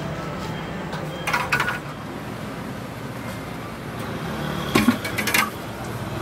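Metal kitchen utensils clatter in two short bursts of clicks, about a second in and again near the end, over a steady low background hum at a crêpe griddle.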